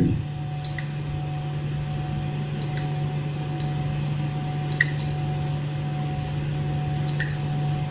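A steady low hum runs throughout, with a few faint light clicks of a metal spoon against a small glass cup as drops of food colour are spooned onto the rice.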